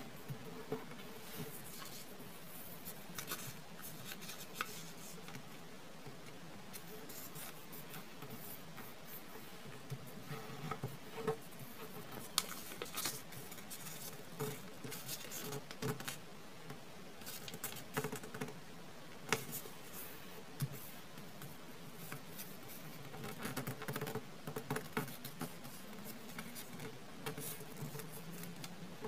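A square of origami paper being folded and creased by hand: scattered crinkles, scratches and light clicks as fingers press and slide along the folds.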